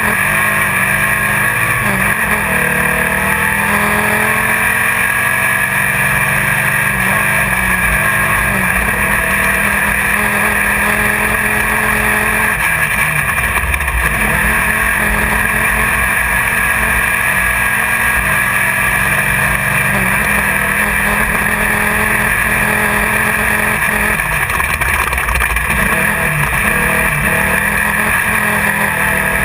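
Engine of a Class 1600 off-road race car running hard at speed, heard from inside the car over constant wind and chassis noise. The engine pitch rises and falls several times in the first few seconds, then holds fairly steady.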